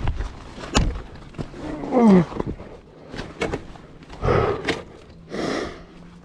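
Scattered knocks, then a short vocal sound falling in pitch about two seconds in, followed by two heavy breathy exhales.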